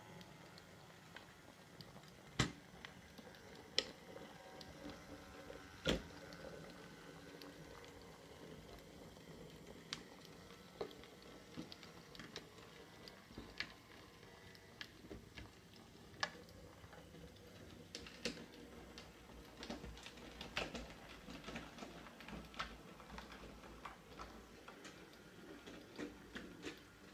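Kit-built DJH WD model locomotive in EM gauge running on its first test run: a faint motor hum with irregular light clicks from its wheels on the track and pointwork, a few of them sharper.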